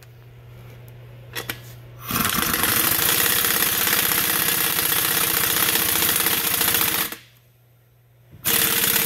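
Pneumatic impact wrench hammering as it tightens the impeller bolt clockwise onto the pump shaft. It runs for about five seconds starting about two seconds in, stops for just over a second, then hammers again near the end.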